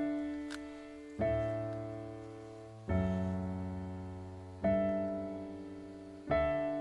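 Background piano music: slow chords, a new one struck about every one and a half to two seconds, each fading away before the next.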